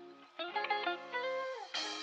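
Background music: plucked guitar notes, with one note sliding down in pitch near the end.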